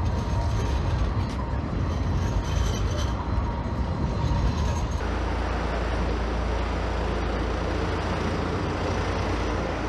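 City street traffic running past, a steady rush of road noise. About halfway through it changes suddenly to a more even, denser rush.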